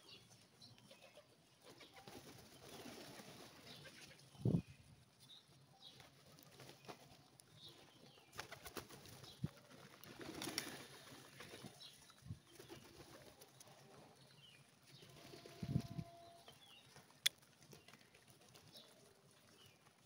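A flock of rock pigeons at close range: scattered wing flutters and flaps with now and then some cooing. The few louder moments come a little over four seconds in, around the middle and near the end.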